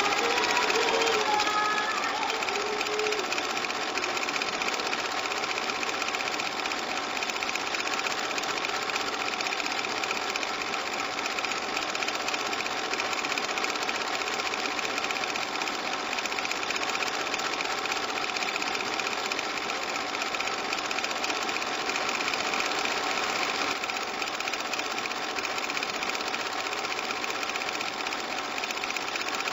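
A small machine running with a steady whirr: a fast, even rattle with several constant tones over it.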